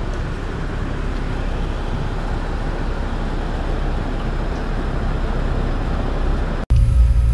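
Turbocharged Trailblazer SS's 6.0 L LS2 V8 running on a hub dyno: a steady, deep rumble with rushing air noise that grows slightly louder, then cuts off abruptly near the end into a different steady low hum.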